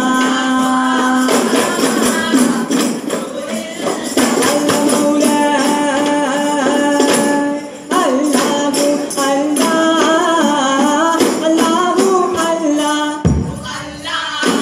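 Arabanamuttu: a group of male voices singing a melody in unison while beating arabanas, hand-held one-sided frame drums, in a fast, steady rhythm.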